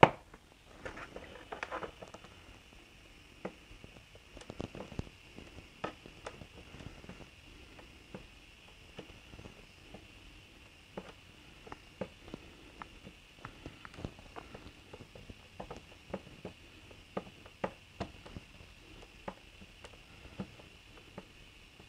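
Light, irregular clicks and crackles as the hot tip of a Portasol butane soldering iron scrapes and melts a plastic bumper tab to plastic-weld it, over a faint steady hiss.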